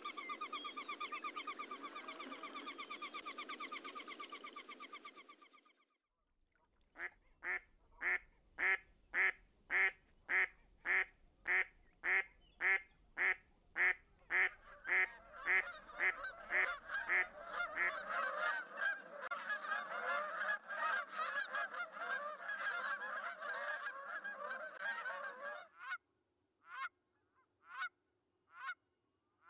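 For the first few seconds, a steady, wavering pitched sound that cuts off. Then trumpeter swans honking: a run of evenly spaced honks, about two a second, that grows into several swans calling over one another. The chorus cuts off near the end, leaving a few single honks.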